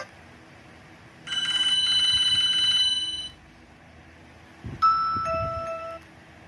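Nokia 215 phone speaker playing ringtone or alert-tone previews. A bright, fluttering bell-like tone sounds for about two seconds, then after a soft knock comes a short chime that steps down to a lower note.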